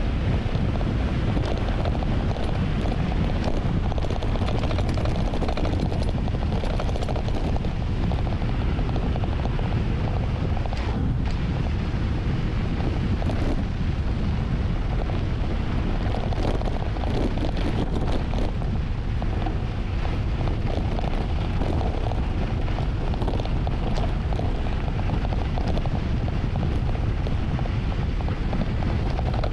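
Heavy wind buffeting on the camera's microphone, a steady deep rumble, from riding a mountain bike downhill at speed.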